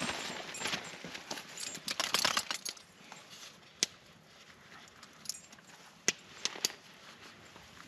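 Rustling for the first two or three seconds, then a handful of scattered sharp clicks or snaps.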